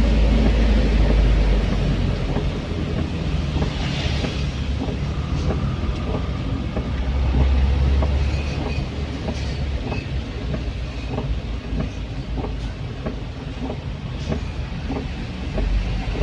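Isuzu Elf minibus driving at speed, heard from inside the cabin: a steady low rumble with many quick, irregular rattles and clicks.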